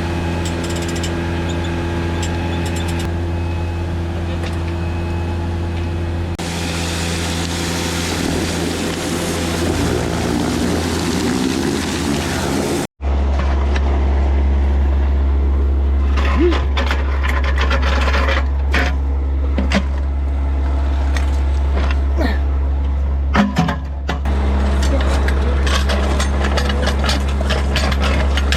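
An engine running steadily at a constant speed, with scattered knocks and clinks of metal work over it in the second half.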